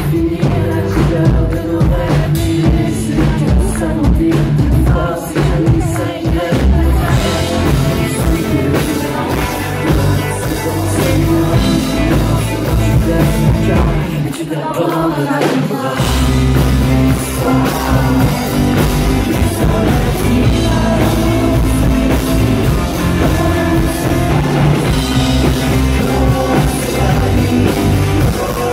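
Live rock band playing, with a male lead singer over drums, electric guitars and bass guitar. About halfway through, the bass and kick drop out for a couple of seconds, then the full band comes back in.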